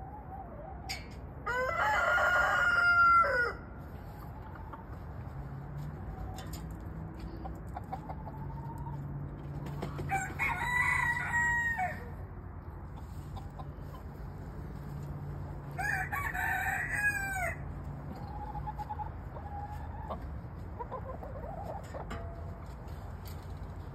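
Rooster crowing three times, each crow about two seconds long and ending on a falling note, with faint clucking between the crows.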